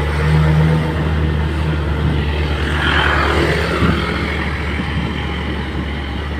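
A vehicle engine running steadily on the move, with a low, even drone. About halfway through, a rush of higher noise swells and fades.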